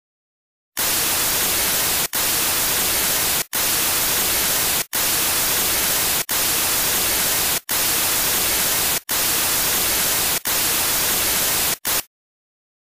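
Loud white-noise static, like a dead TV channel, broken by brief dropouts about every second and a half. It starts about a second in and cuts off abruptly near the end.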